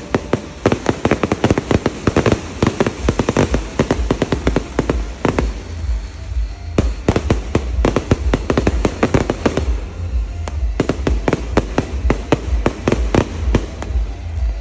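Fireworks going off in rapid volleys of sharp bangs, dozens in quick succession. The volleys thin out briefly about six seconds in and again about ten seconds in, over a steady low rumble.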